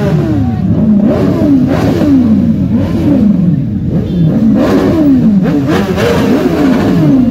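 Motorcycle engines being revved over and over: quick throttle blips, each rising sharply in pitch and falling away, several overlapping.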